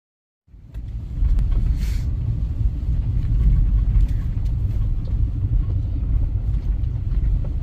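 1999 Isuzu Trooper driving on the road, a loud steady low rumble that starts suddenly about half a second in.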